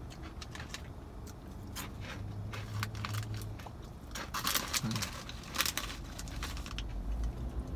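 Crinkling of a Cheetos snack bag as a hand rummages in it, and crunching of Cheetos being bitten and chewed: a run of short crackles and crunches, busiest from about halfway through.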